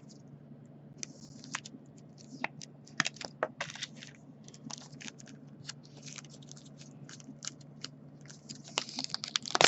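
Baseball cards being handled and shuffled: a string of short, scratchy rustles and clicks, busiest about three seconds in and again near the end, over a low steady hum.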